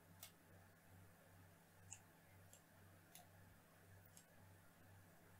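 Near silence: a faint low hum with a few faint computer mouse clicks scattered through it.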